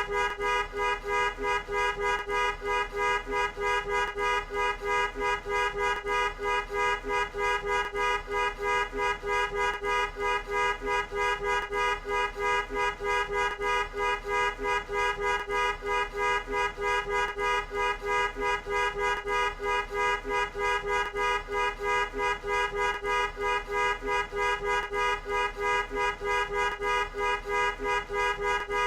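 Car horn honking over and over in a quick, even train of short honks, a few a second, with barely a break between them.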